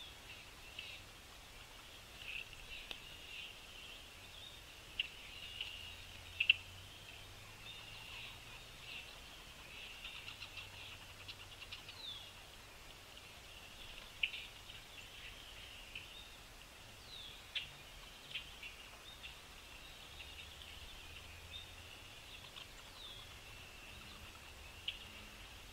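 Small birds chirping in short calls and brief falling notes over a steady high-pitched background chorus, with a few sharp taps, the loudest about six seconds in.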